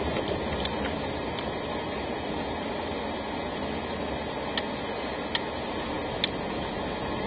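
Car driving, heard from inside the cabin through a dashboard camera's microphone: a steady rumble of road and engine noise. A few sharp clicks come near the end.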